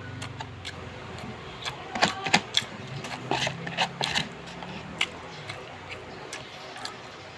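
Someone chewing crispy fried chicken wings: irregular crunches and wet mouth clicks, the loudest a few close together about two seconds in.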